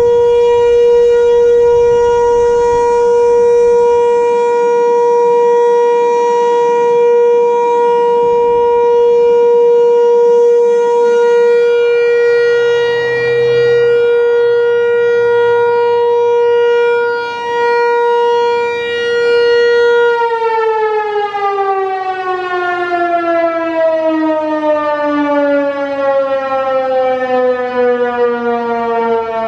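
American Signal T-128 electromechanical outdoor warning siren sounding the steady alert signal, one held tone with rich overtones. About two-thirds of the way through, the tone starts winding down, its pitch falling steadily as the rotor slows at the end of the alert cycle.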